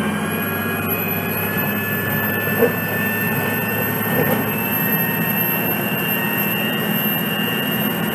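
2006 Orion VII CNG bus's Cummins C Gas Plus engine idling at a stop: a steady low engine hum under a high whine that rises slightly in the first second, then holds steady. There is a short click about two and a half seconds in.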